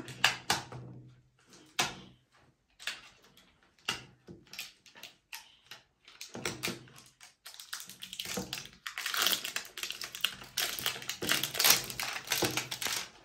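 Scattered clicks and scrapes of fingers prying at the metal-rimmed lid of a toy canister, then from about eight seconds in, continuous crinkling of a clear plastic wrapper being handled.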